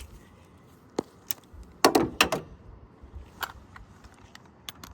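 Irregular metallic clicks and knocks of an angle ratchet and socket being handled and fitted onto the alternator's bottom bolt, with a quick cluster of louder knocks about two seconds in.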